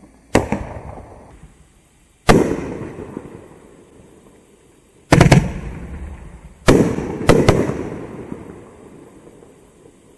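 Winda 'Jellyfish Aquarium' 9-shot consumer firework cake firing: about six sharp bangs, some in quick pairs, each trailing off in a long echo.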